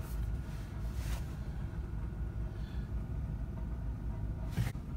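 2004 Panther-platform sedan's 4.6 V8 idling steadily, heard from inside the cabin as a low, even rumble. The high-mileage engine (about 180,000) runs with no knocks.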